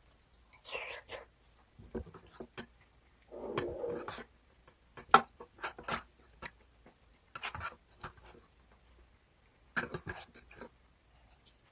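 A person eating close to the microphone: scattered crunching and smacking chews and clicks, with a longer rustling burst about three and a half seconds in.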